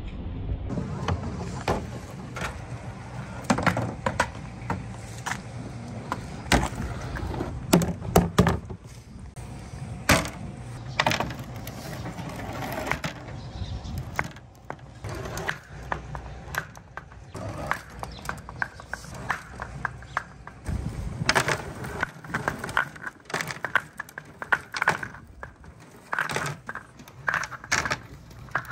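Large clear balls rolling down a handmade marble run of wooden slopes and rain gutters: a steady rolling rumble broken by many sharp clacks as the balls knock against the track and each other. The clacks come thicker in the last third as the balls bunch up in a line.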